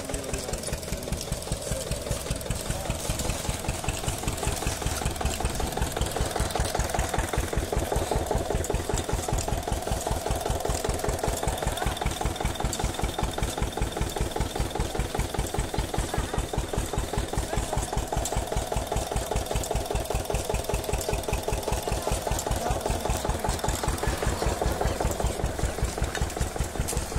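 An engine running steadily with an even, rapid thumping beat.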